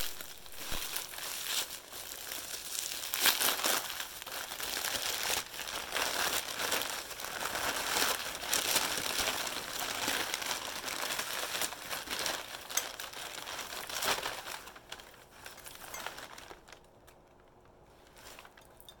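Packing wrap being crinkled, crumpled and torn by hand as a mailed item is unwrapped, with many small crackles and snaps; the rustling stops about 15 seconds in and it goes nearly quiet.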